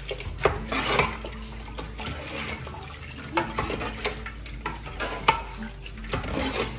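A metal skimmer and ladle stirring palm-oil soup in a metal pot: repeated scrapes and knocks of the spoon against the pot wall, irregular throughout.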